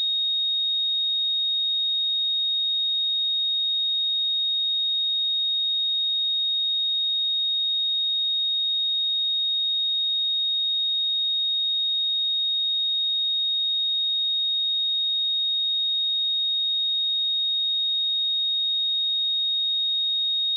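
A single steady 3733 Hz sine-wave test tone, a high pure whistle held at an even level without change.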